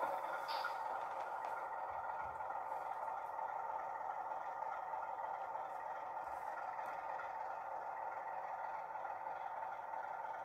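Sound decoder of a CFR 060 DA diesel locomotive model playing its diesel engine running sound through the model's small speaker as it pulls a freight train: a steady hum that eases off slightly after the start, with a few faint clicks.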